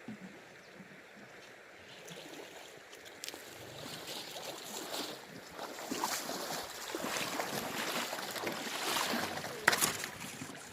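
Shallow river water splashing and sloshing as it is stirred, growing louder after about two seconds, with small clicks of stones through it and one sharp knock near the end.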